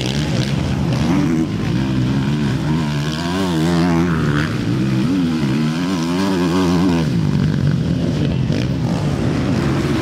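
Four-stroke motocross bikes racing past on a dirt track, their engines revving up and down through the corners as the riders work the throttle, with the pitch rising and falling again and again.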